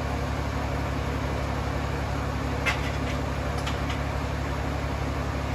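A truck engine idling steadily, with a few light clicks about halfway through.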